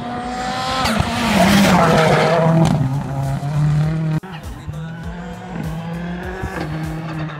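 Turbocharged RX3 rallycross cars running at race pace. One passes close, loud, its engine note dropping as it goes by amid a rush of tyre and loose-surface noise. Then a farther-off car follows, holding a steadier engine note.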